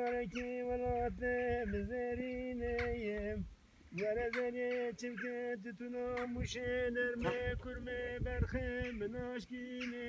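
A man's voice singing a slow, unaccompanied melody in long held notes that step between neighbouring pitches, with a short pause about three and a half seconds in.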